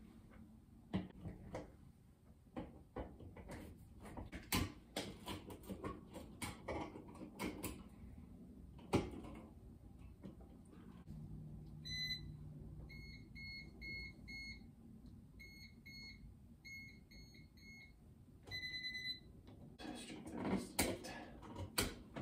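Scattered clicks and knocks as an old ceiling light fixture is taken down. In the second half a handheld electrical tester beeps: one longer beep, groups of short pips at about four a second, then a last longer beep.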